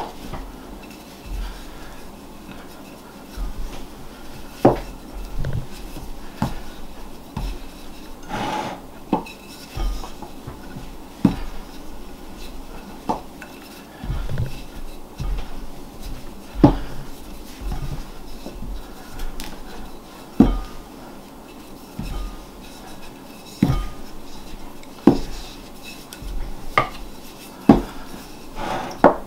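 Wooden rolling pin rolling out bread dough on a wooden table, with irregular short knocks and thumps every second or two as the pin and hands work the dough.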